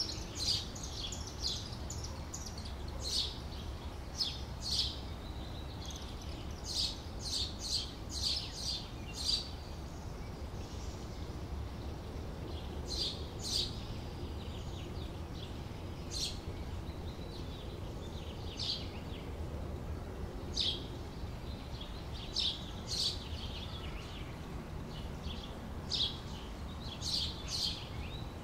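Small birds chirping: short, sharp chirps in irregular clusters, with a few quiet gaps, over a steady low background rumble.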